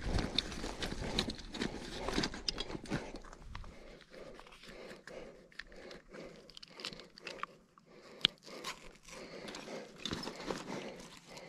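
Handling noise: irregular rustling, scraping and small clicks and taps, with one sharp click about eight seconds in. A low rumble runs under it and stops about four seconds in.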